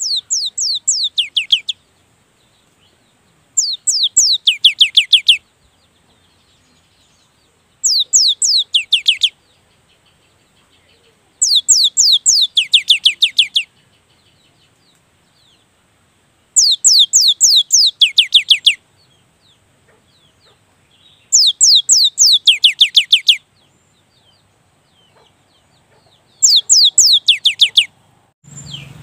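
Cinereous tit (gelatik batu) singing its rolling 'wucit-wucit' song. It gives seven bouts, each a fast run of about ten high, downward-sweeping whistled notes lasting under two seconds, repeated every four seconds or so.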